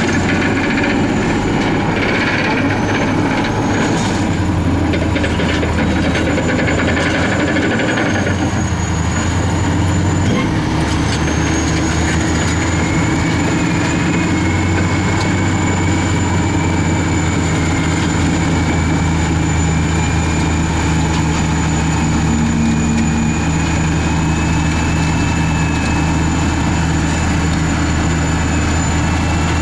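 Caterpillar D10T bulldozer and a motor scraper, both diesel engines working under heavy load as the dozer push-loads the scraper. A deep, steady engine drone carries a thin high whine above it, and the engine note shifts about eight to ten seconds in.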